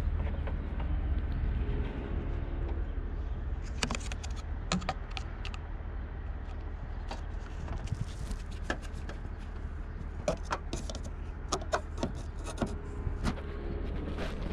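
Scattered light clicks and knocks as a plastic funnel and clear hose are handled and set in place in a van's engine bay, over a steady low rumble.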